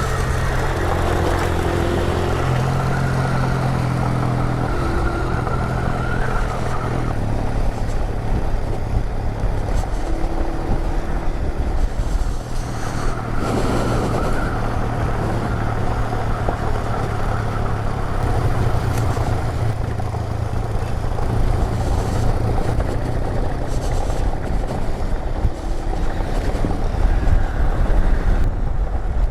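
Motorcycle engine running under way on a dirt road, its note stepping up and down several times with speed.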